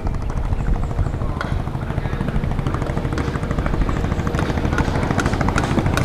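A small boat's engine running steadily, a low drone with a faint constant whine above it.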